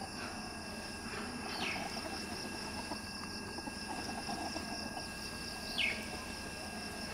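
Two short falling bird chirps, about four seconds apart, the second louder, over soft low clucking from chickens and a steady high insect hum.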